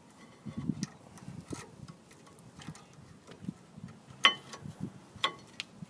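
Small metallic clicks and clinks as a brake pad is fitted into a disc brake caliper and its hardware clips, with two sharper clicks about four and five seconds in.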